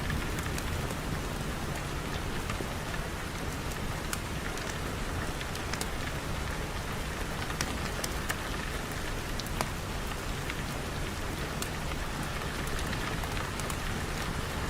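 Steady rain falling, an even hiss with sharp single clicks scattered here and there.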